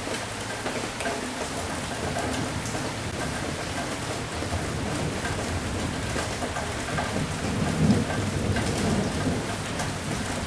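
Steady heavy rain hissing and pattering, with a low rumble of thunder swelling in the second half and peaking near the end.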